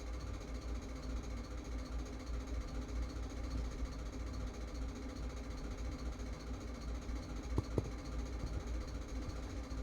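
Steady low hum with a fluttering low end, with two light clicks about three quarters of the way through.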